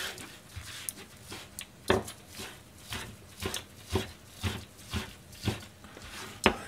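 Kitchen knife chopping vegetables on a cutting board: faint slicing ticks at first, then from about two seconds in a steady run of sharp knocks, about two a second, as the blade strikes the board.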